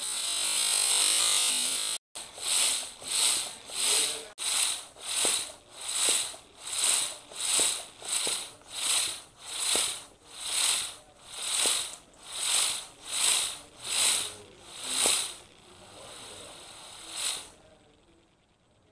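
Floor-standing bicycle pump worked in quick strokes, about one and a half a second. Each stroke is a hiss of air forced through the hose into a Lego pneumatic engine build. A longer steady hiss comes first, and the strokes stop a few seconds before the end.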